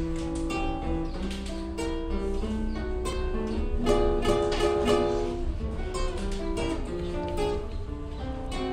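Acoustic guitar played solo: picked single notes and chords forming the instrumental introduction to a recited poem.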